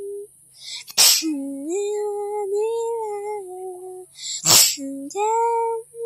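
A high voice hums or sings a wordless tune in held notes that slide from one pitch to the next. It is cut twice by short, loud, breathy bursts like sneezes, about a second in and again about four and a half seconds in.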